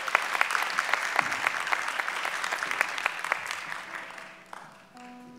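Audience applauding, the clapping dying away after about four seconds; near the end a few held musical notes begin.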